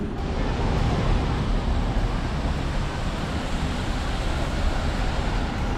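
Steady road traffic noise from cars and a double-decker bus driving past close by, heaviest in the low rumble.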